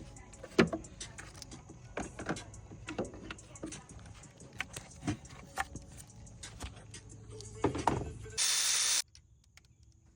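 Irregular clicks and knocks of tools and parts being handled while working on an engine, over a low steady hum, then a half-second burst of hiss about eight seconds in.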